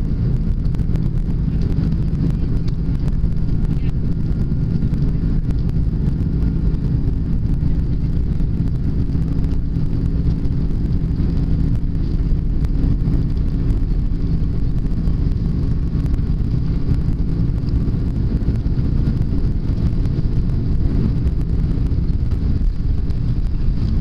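Steady low rumble of an Airbus widebody airliner's jet engines at taxi power, heard inside the passenger cabin as the aircraft rolls along the taxiway, with a steady low hum running through it.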